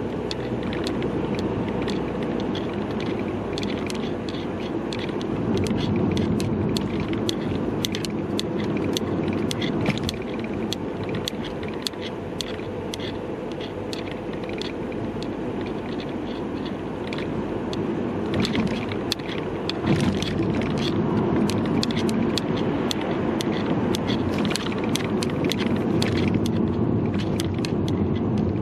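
Steady car road and engine noise heard inside the cabin, with an irregular patter of small clicks from the camera's hanging strap knocking against it as the car moves.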